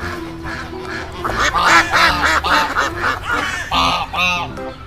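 Ducks quacking: a quick run of short, repeated calls from about a second in, then two louder quacks near the end.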